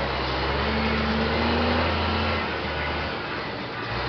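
Scania 124 truck's six-cylinder diesel engine pulling in gear, heard from inside the cab. Its steady low note drops away about three seconds in as the gear is changed, then picks up again just before the end.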